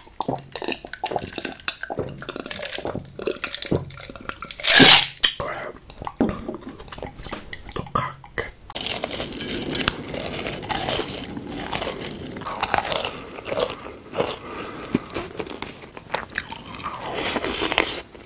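Close mouth sounds of water being drunk from a glass, with gulps, swallows and small clicks, and one loud burst about five seconds in. From about nine seconds a denser run of crunching and chewing eating sounds follows.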